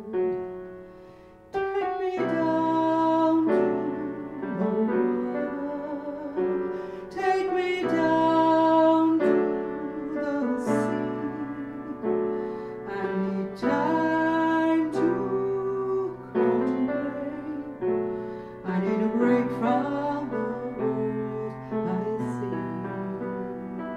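A woman singing a slow song into a microphone, accompanied by piano.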